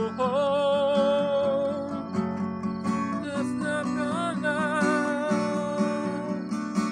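A man singing wordless gibberish while strumming a steady rhythm on a Takamine cutaway acoustic guitar. The voice holds long notes, some with vibrato.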